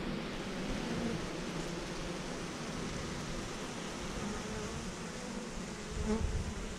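Honey bee swarm buzzing steadily, the dense hum of many bees at once, with some low rustling and handling noise near the end.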